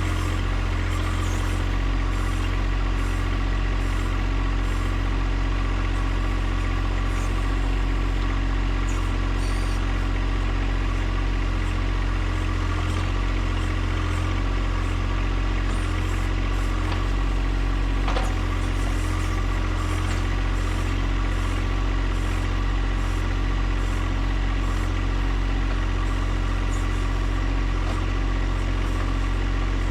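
John Deere 1025R compact tractor's three-cylinder diesel engine running steadily at a constant speed. A single sharp click is heard partway through.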